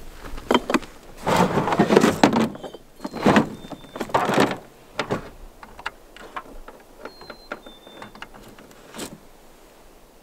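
Gear being handled and shifted around a truck: rustling and scraping with irregular knocks and clicks, loudest in the first half. A few short high chirps come through now and then.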